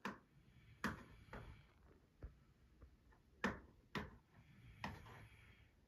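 A sleeping Samoyed's paws tapping against the floor and wall as it twitches in its sleep: about half a dozen faint, sharp taps at uneven intervals, two of them close together around the middle.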